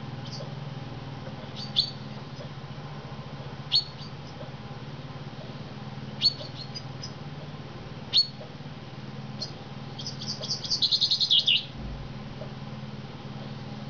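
Chaffinch calling: short, sharp, high chirps about every two seconds, then, about ten seconds in, a quick run of notes falling in pitch, a burst of chaffinch song. A steady low hum runs underneath.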